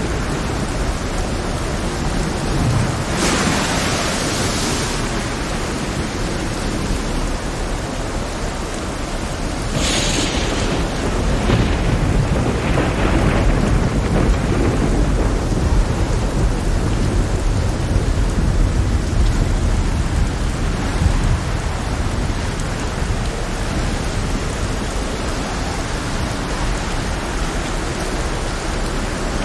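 Heavy rainstorm: a steady rain hiss over a deep thunder rumble, with louder sudden crashes at about three seconds and again at about ten, and smaller ones shortly after.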